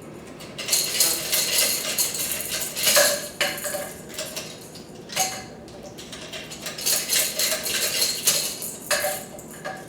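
Dishes and cutlery clattering and clinking in a run of irregular knocks, with a short lull near the middle.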